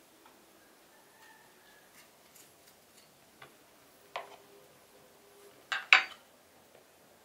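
Small clicks and taps of a paring knife and tomatoes being handled over a wooden plate and cutting board. There is a sharper knock about four seconds in, and the loudest sound is a pair of knocks about six seconds in as tomatoes are set down on the wooden board.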